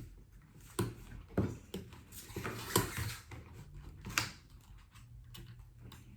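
Scattered light clicks and taps of small hand tools and plastic pry cards working on an iPad's edge, about four or five distinct clicks, over a low steady hum.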